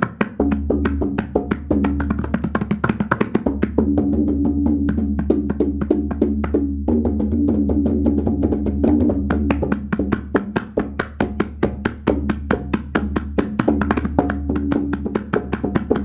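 Tabla played in a fast, dense run of strokes. The small drum rings at a steady pitch over the deep bass of the large drum.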